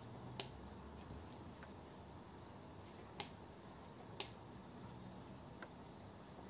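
Sharp clicks of a modded spinning pen knocking against the fingers as it is spun and caught: a loud one shortly after the start, two more about a second apart past the middle, and a fainter one near the end, over quiet room hiss.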